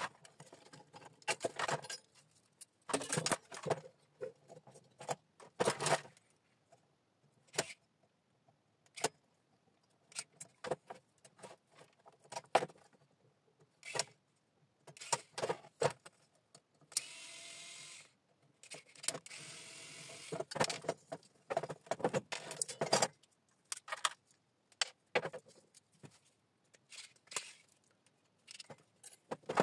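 Small metal parts of a three-phase electricity meter clinking and knocking as it is handled and dismantled. Near the middle, a cordless electric screwdriver runs twice, each time for about a second and a half, backing out screws.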